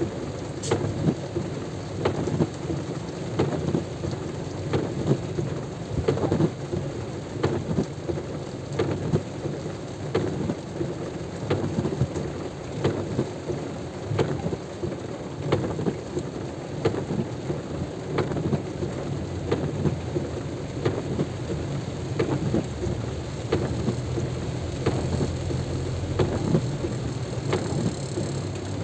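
Heavy rain, with many drops striking close to the microphone as sharp irregular taps over a low rumble.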